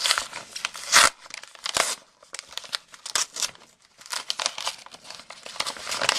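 Paper packaging being unwrapped by hand, crinkling and tearing in irregular bursts, loudest about a second in.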